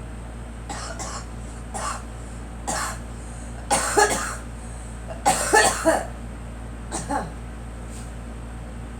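A girl coughing in a string of short coughs, the hardest fits about four and five and a half seconds in, ending with a last cough about seven seconds in. The coughing is put down to bad pollen.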